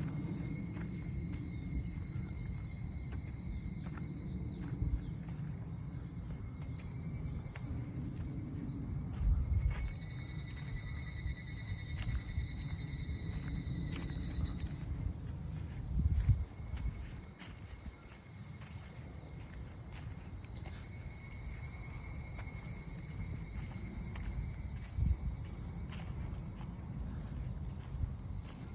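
Steady high-pitched chorus of insects, with a fainter trill that comes and goes at a lower pitch. Under it is a low rumble with a few soft thumps, the loudest about nine and sixteen seconds in.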